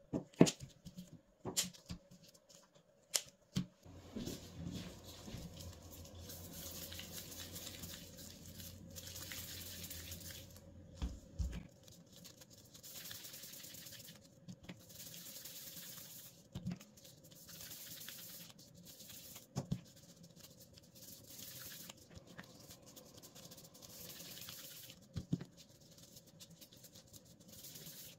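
Scissors snipping bread dough a few times as sharp clicks in the first few seconds. Then gloved hands roll dough pieces into balls on a silicone mat: soft rubbing in repeated stretches of a second or two, with a few light taps.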